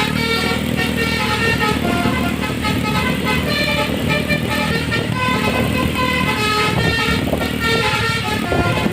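Bus basuri melody horn playing a tune in short stepped notes (the 'telolet' sound), over the low rumble of the bus's engine.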